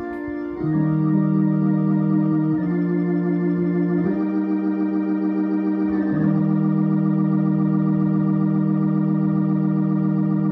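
Console electronic organ playing slow, sustained hymn chords through its built-in rotating speaker, which adds a wavering tremolo. The chords change about every one and a half to two seconds.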